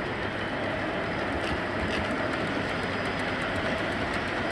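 O gauge model trains running on a large exhibition layout: a steady running noise of wheels on track, with a few faint clicks.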